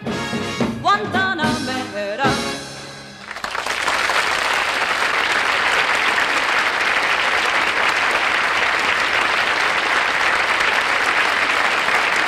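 A woman singing the last phrase of a song with band accompaniment, ending about three seconds in. Studio audience applause then breaks out and carries on steadily.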